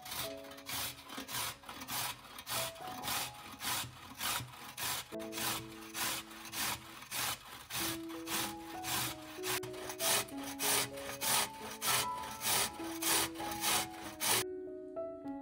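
Rhythmic rasping strokes of food being grated by hand on a grater, about two strokes a second, stopping near the end.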